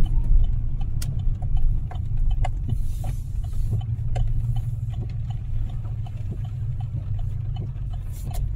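Steady low rumble of a truck moving slowly in heavy rain, heard from inside the cab. Scattered sharp ticks of rain striking the vehicle come through it.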